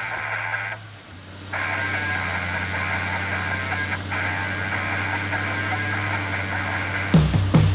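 A steady mechanical hum that drops away briefly about a second in, then comes back. Loud rock music cuts in near the end.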